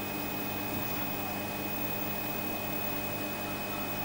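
Steady low electrical hum with an even hiss and a faint thin high tone, unchanging throughout.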